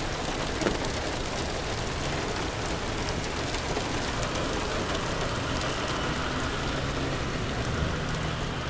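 Heavy rain pouring onto a wet asphalt parking lot: a steady hiss of drops splashing on standing water.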